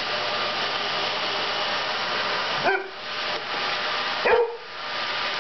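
Vacuum cleaner running steadily, with a dog barking twice, sharply, about two and a half seconds in and again near the end.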